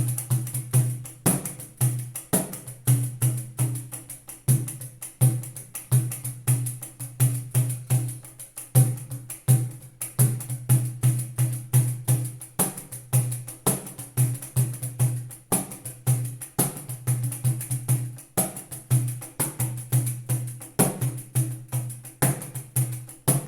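Pandeiro played solo in a steady rhythmic pattern, alternating low, booming thumb strokes on the head with mid-pitched fingertip strokes, the jingles shimmering on every stroke.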